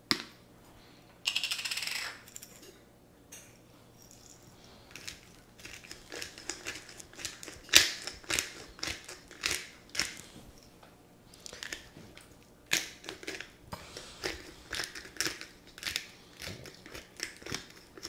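Lemon-pepper spice shaker being shaken and tapped over fish fillets: a string of sharp, irregular clicks and rattles, about one or two a second, from about five seconds in. The seasoning is old and not coming out well. A brief rasping scrape about a second in.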